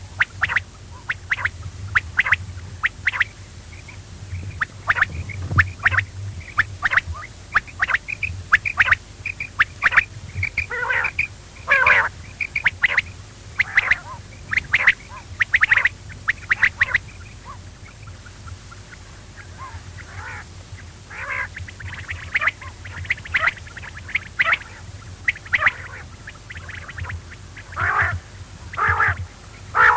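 Quail calling over and over, short sharp calls in quick runs with a brief lull in the middle, over a steady low hum.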